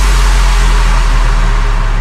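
Electronic dance music: a long, loud, deep sub-bass note held steady under a wash of noise.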